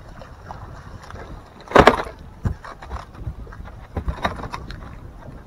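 Wind buffeting the microphone while a hooked bass is fought and lifted aboard a boat: one loud, brief rushing burst about two seconds in, then a handful of sharp knocks.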